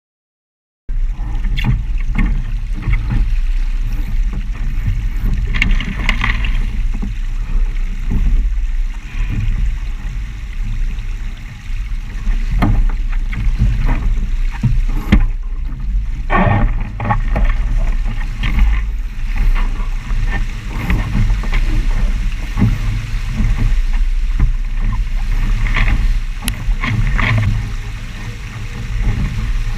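Loud rushing water and wind buffeting the microphone as a Musto Skiff sailing dinghy planes along, with a steady low rumble and scattered knocks and splashes against the hull. The sound cuts in suddenly about a second in.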